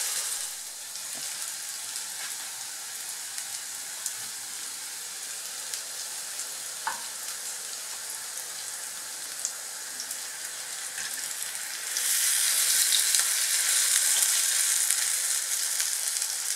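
Malanga fritters frying in shallow oil in a nonstick pan: a steady hiss of sizzling oil with a few light clicks of a fork against the pan. The sizzle grows louder about twelve seconds in, as a fritter is turned over.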